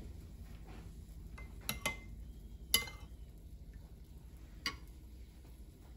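A metal spoon clinking against a ceramic bowl while scooping consomé, a few sharp clinks with the loudest near the middle.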